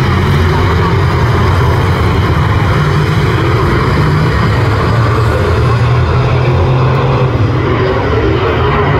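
A pack of speedway saloon cars racing on a dirt oval, their engines running together as one loud, steady mass of noise that dulls a little about six seconds in.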